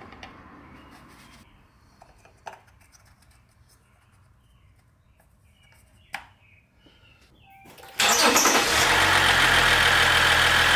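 A few faint clicks and knocks under the hood. About eight seconds in, the 2018 Ram 1500 EcoDiesel's 3.0-litre turbo-diesel V6 starts suddenly and runs at a steady idle: its first start on fresh oil, circulating it through the new filter.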